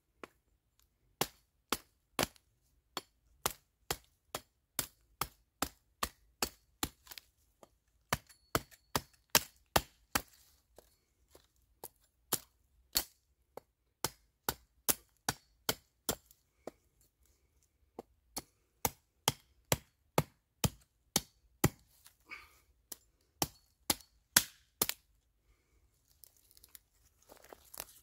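Small hatchet chopping through a thin branch: a long series of sharp wooden strikes, about two a second, with a few short pauses, ending a few seconds before the end once the branch is cut through.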